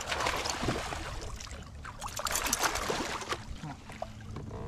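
Water splashing as a bass blows up on a buzzbait at the surface, with a second spell of splashing and quick clicks about two seconds in.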